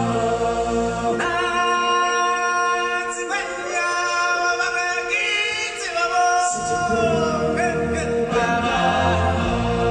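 Live stage-show music with a group singing in chorus. The bass drops away about a second in and comes back about six and a half seconds in.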